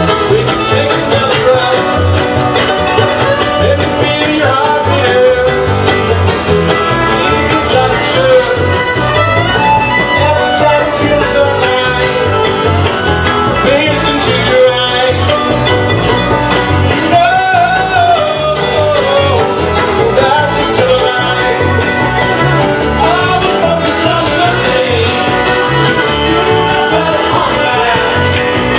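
Live bluegrass band playing at full volume: banjo picking, fiddle, guitar and upright bass together over a steady beat.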